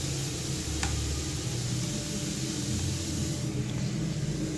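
Sliced onions sizzling steadily in hot cooking oil in a steel kadai, with one light tick about a second in.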